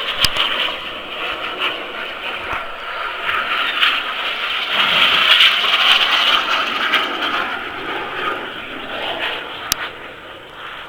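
BAE Hawk T1 jets flying past in formation, their jet engines making a continuous rushing noise that swells about halfway through and fades away near the end.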